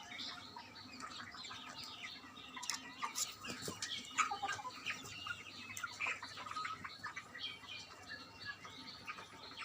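A flock of broiler chickens in a poultry shed, many birds chirping and calling at once in a continuous overlapping chatter.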